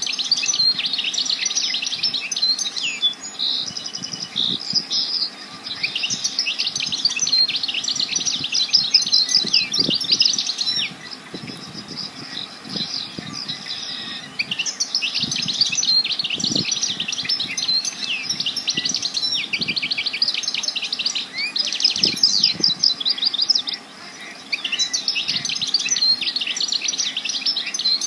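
A songbird singing long phrases of rapid chirps and trills, with short pauses between phrases and a longer pause of a few seconds about halfway through.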